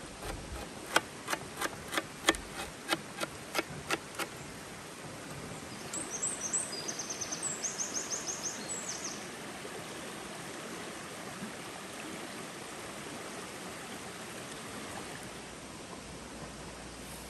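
A knife chopping fresh greens on a metal tray: about a dozen sharp strikes, roughly three a second, over the first four seconds. Midway a bird sings a rapid, high-pitched trill. The steady rush of a river runs underneath throughout.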